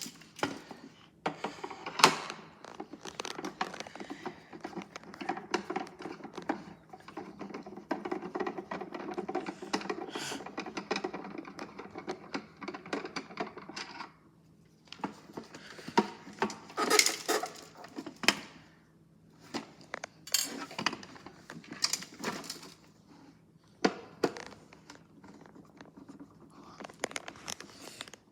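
Screws being worked out of a plastic toy washing machine's casing with a screwdriver: a dense run of small clicks and scraping, then scattered clicks and knocks as the plastic shell is handled.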